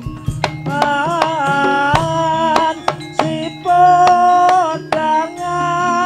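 Javanese jaranan accompaniment music: a melody of held, sliding notes over frequent drum strokes.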